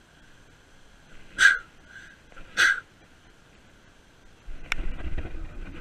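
An animal, most likely a dog, barking twice, about a second apart. A low rumble with clicks and knocks starts near the end.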